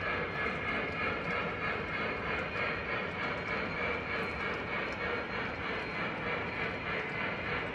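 O-gauge model freight train of double-stack container well cars rolling steadily along the track: a continuous rumble of wheels on rail with faint scattered clicks.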